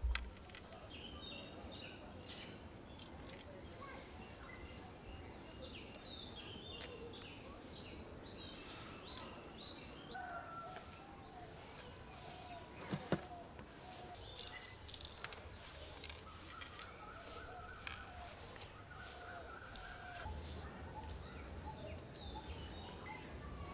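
Faint outdoor ambience of birds chirping and calling in short repeated phrases over a steady high-pitched hum. A few light taps sound, the loudest about halfway through.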